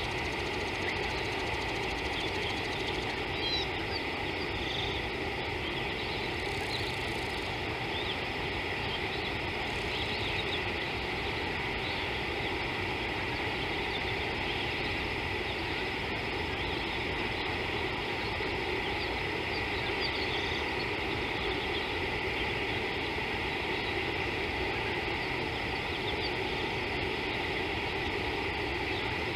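Steady outdoor ambience from an open-air wildlife camera microphone: an unbroken hiss and low hum, with a constant high drone and a few faint, scattered chirps.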